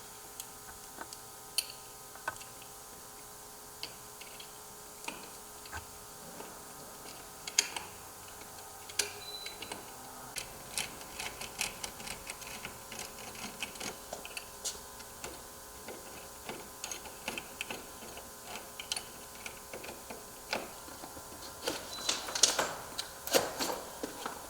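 Scattered small clicks and taps of door knob and lock hardware being handled and fitted with a screwdriver, sparse at first, then more frequent, with a dense run of clicks near the end.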